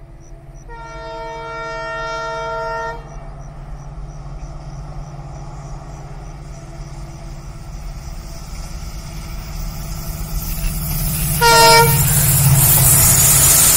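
WDP-4D diesel locomotive approaching: its engine rumbles low and grows steadily louder. About a second in its multi-tone horn sounds one long blast of about two seconds, and near the end a short toot. The rush of the train closing in builds over the last seconds.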